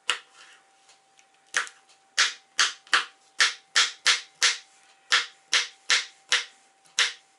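Kitchen knife chopping pickled courgette on a plastic cutting board: about a dozen even, sharp strokes, two to three a second, starting about a second and a half in.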